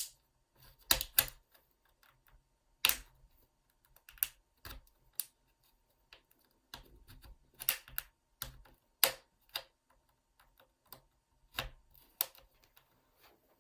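Irregular sharp plastic clicks and snaps, about a dozen scattered through the stretch, as the plastic back panel of an MSI GP66 Leopard laptop is pried away from its metal frame and its clips are worked loose.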